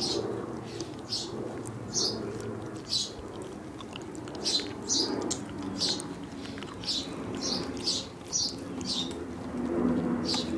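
Shetland sheepdog licking at a lollipop, with short repeated wet smacks about once or twice a second, and low whining underneath that grows louder near the end.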